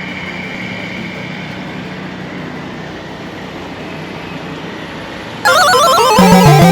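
A steady background hum and hiss. About five and a half seconds in, loud music cuts in abruptly with a falling melody.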